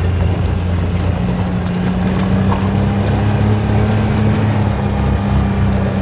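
John Deere Gator utility vehicle driving over rough ground, its engine a steady drone under a constant rumble from the ride.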